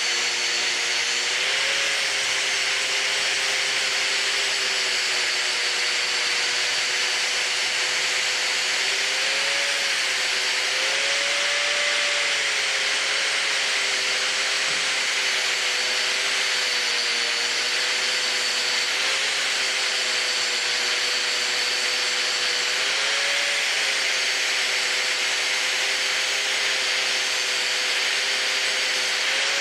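Angle grinder with a flap disc grinding metal: a steady motor whine over a dense hiss of abrasive on steel, its pitch lifting briefly a few times. This is the finishing pass on the part, with the flap disc used for smoothing.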